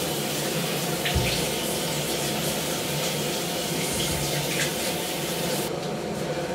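Bathroom sink tap running steadily while a face is rinsed under it, with a few splashes of water as foaming face wash is washed off.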